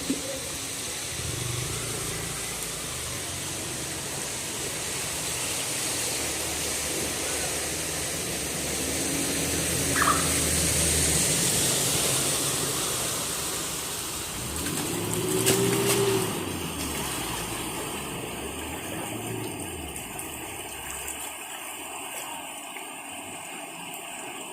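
Motor vehicles passing along a flooded street, engine rumbles swelling and fading several times over a steady hiss of rain and water.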